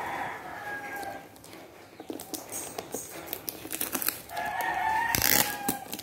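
A rooster crowing twice: one long call at the start and another about four seconds in. Between them come the crinkling and rustling of plastic wrap being pulled off a food container, loudest in a short burst during the second crow.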